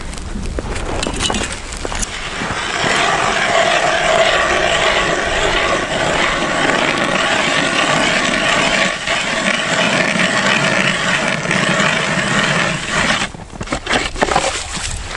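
An ice auger grinding steadily as it cuts through river ice for about ten seconds, then stopping near the end, followed by a few scattered knocks and scrapes. It opens with a couple of seconds of crunching footsteps in snow.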